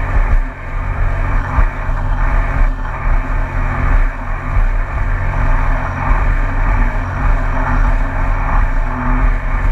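2019 Yamaha EX WaveRunner's three-cylinder four-stroke engine and jet pump running steadily under way, with water rushing past the hull. A strong, uneven low rumble suggests wind buffeting the microphone as well.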